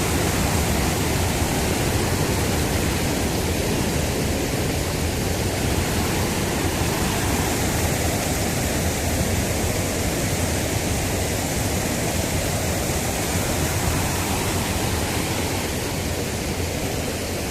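Floodwater from an overflowing river rushing past, a steady, even noise with no breaks.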